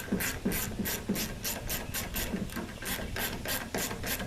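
Hand screwdriver driving small screws into a truck's heater control panel, a regular scraping stroke about three times a second.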